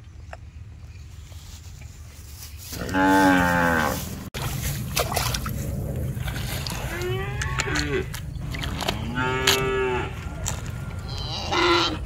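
Cattle mooing: a long, loud moo about three seconds in, then three more moos around seven seconds, about nine and a half seconds and near the end. A steady low rumble sits under the calls in the second half.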